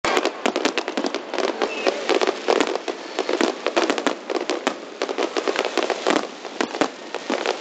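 Fireworks display: a rapid, continuous run of overlapping bangs and crackles, several a second, with no single burst standing out for long.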